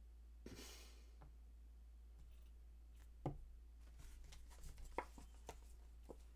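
Near silence with a steady low hum, broken by a few faint taps and rustles as a deck of tarot cards is handled and shuffled.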